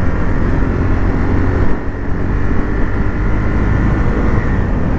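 KTM Duke 390's single-cylinder engine running at road speed, heard from the rider's seat with wind buffeting the microphone. There is a brief dip in the sound about two seconds in.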